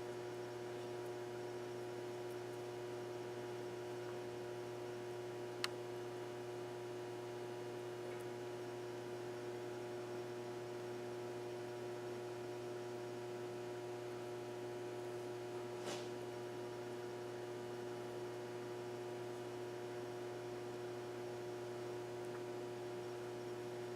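Steady electrical hum over faint hiss, with one sharp click about six seconds in and a softer tap about sixteen seconds in.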